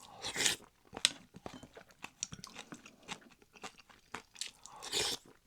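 Close-miked chewing of crunchy food: a run of crisp crunches and wet mouth clicks, with two longer, louder noisy swells, one just after the start and one near the end.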